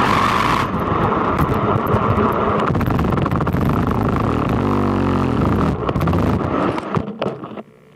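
Quanum Vandal RC buggy driving over rough ground, heard from on board: a dense rattle and scrape of tyres and chassis with a steady motor whine. About five seconds in the motor's pitch falls as it slows, and near the end the sound drops away sharply.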